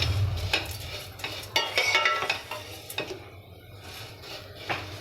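Wheat vermicelli being stirred as it roasts in ghee in a pan, browning: a spoon scraping and clinking against the pan over a light sizzle, with one ringing clink about two seconds in.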